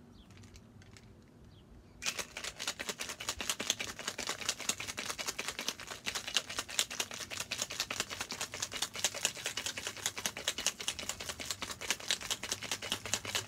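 Ice cubes rattling hard inside a metal cocktail shaker as a cocktail is shaken to chill it. The rapid, dense rattle starts about two seconds in and keeps going without a break.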